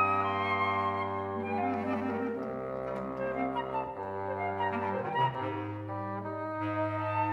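Woodwind trio of flute, bass clarinet and bassoon playing held chords, the low instruments sustaining a bass note under the flute. The chords shift every second or two, with a short quick figure in the lower voices about two seconds in.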